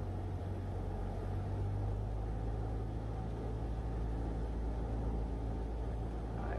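Cessna 172's engine and propeller droning steadily at reduced power on final approach, heard from inside the cockpit.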